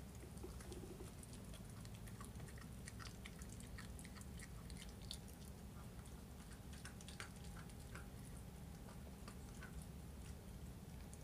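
A miniature schnauzer puppy chewing on a raw chicken drumstick, its teeth on the bone and meat making many small, faint clicks.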